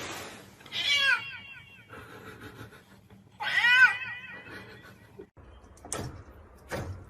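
A cat meowing twice, two pitched calls about two and a half seconds apart, followed near the end by two sharp knocks.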